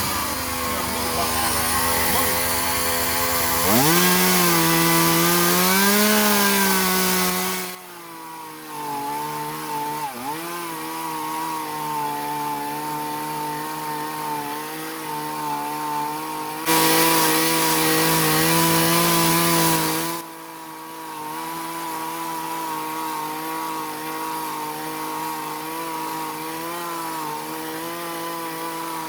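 Chainsaw running at high revs and cutting wood. The engine note climbs about three seconds in, and the saw cuts hard in two louder spells, one near the start and one about two-thirds through, running more steadily in between.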